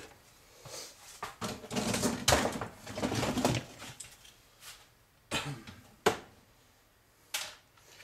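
Rustling and clattering of scrap parts being handled and set down on a workbench, followed by three sharp knocks in the second half.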